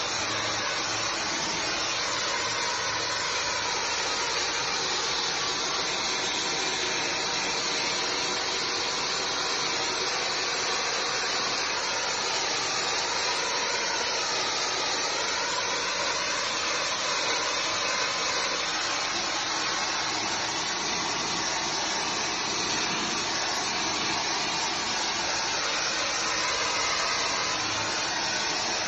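Pressurised brick-cleaning jet spraying onto brickwork, a steady hiss that holds without a break.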